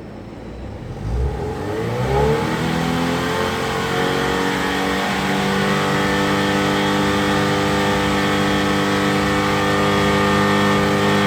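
Subaru BRZ/Scion FR-S flat-four engine on a full catless exhaust with an ACE Laguna 90 resonated midpipe and center-exit muffler, revved up from idle about a second in and held steady at about 6,000 RPM for a stationary sound-level test.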